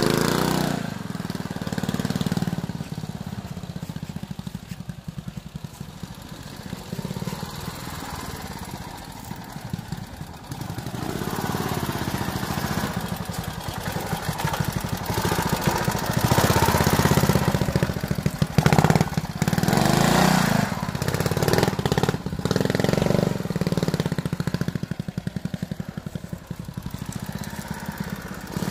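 1952 Tobec motorcycle engine running at low speed, the throttle opened and closed again and again so the revs keep rising and dropping back. It is loudest a little past halfway, with a few short sharp blips of throttle.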